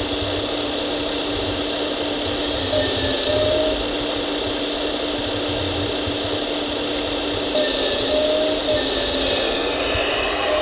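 Hydraulic drive of a radio-controlled Komatsu PC290LC model excavator running with a steady high whine and low hum as it digs and lifts gravel. The whine drops out for a moment about two and a half seconds in, and twice a short extra tone joins as the arm moves.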